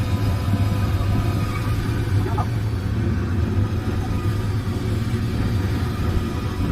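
Royal Enfield Super Meteor 650 twin-cylinder engine running steadily on the move, heard under a steady low rumble of wind and road noise.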